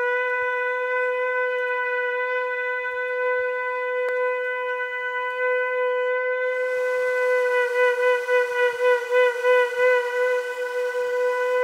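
Goat-horn bukkehorn blown in one long held note at a steady pitch. About halfway through it turns breathier and pulses about three times a second.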